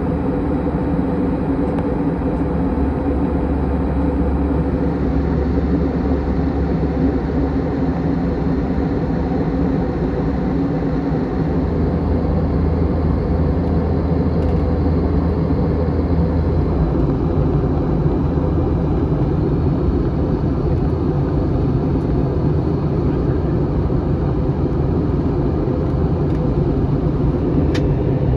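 Steady drone inside the cabin of an Airbus A321 with its engines running: an even rush of air with a low hum.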